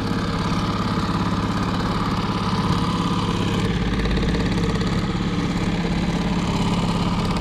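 Boat's outboard motor running steadily at trolling speed, a constant low engine drone with no change in pitch.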